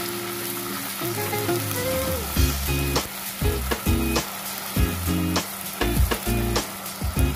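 Sauce with chopped chilies and garlic sizzling in a hot pan as a spatula stirs it around. Background music plays, with a strong beat coming in about two seconds in.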